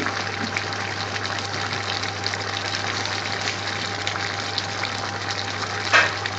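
A large stainless-steel pot of chopped onions, peppers and carrots boiling hard: a steady, even bubbling and hiss over a faint low hum. The vegetables are cooking down for Indian restaurant base gravy. A short, sharp sound breaks in about six seconds in.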